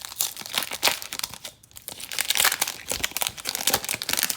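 A football trading-card pack being torn open, its plastic wrapper crinkling in quick, irregular crackles.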